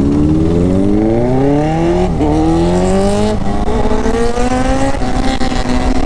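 Motorcycle engine accelerating up through the gears. Its pitch climbs, drops at a shift about two seconds in and again at about three seconds, then climbs once more and levels off. Wind rumbles on the helmet-mounted microphone underneath.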